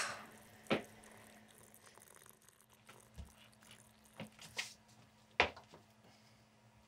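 Quiet room with a low steady hum and a few scattered short clicks and taps, the sharpest about five seconds in.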